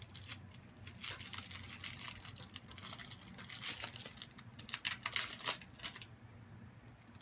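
Lollipop wrapper crinkling and rustling as it is pulled open, stopping about six seconds in.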